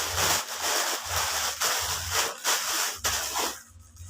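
Packaging rustling and rubbing as it is handled and torn open, in quick repeated strokes that stop about three and a half seconds in.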